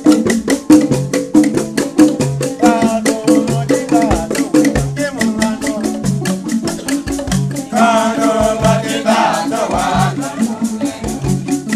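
Dance music: a rattle shaken in a fast, even beat of about four strokes a second over a repeating low bass pattern, with voices singing in two short stretches, the second about two-thirds of the way in.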